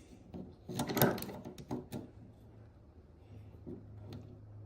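Clicks and light clatter of a digital measuring tool and metal parts being handled while a measurement is converted from millimetres to inches: a cluster of sharp clicks about a second in, then a few lighter clicks, over a faint low hum.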